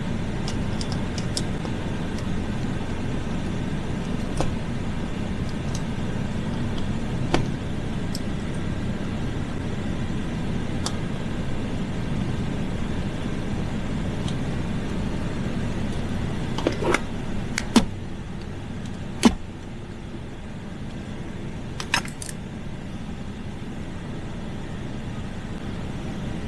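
Plastic console-lid parts and a screwdriver making scattered sharp clicks and clatters as the lid is taken apart: a single click about a quarter of the way in, a quick cluster of clicks just past the middle, a louder single one shortly after, and another near the end. Under them runs a steady low rumble that eases slightly about two-thirds of the way through.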